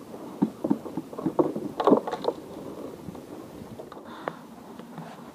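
Knocks and clatters of fishing gear being handled on bamboo decking while packing up: several sharp knocks in the first two seconds or so, then quieter.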